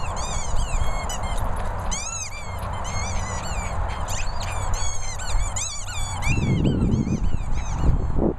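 Rubber squeaky burger toy squeaking rapidly, several squeaks a second, as a dog bites on it while running, over low wind rumble on the microphone.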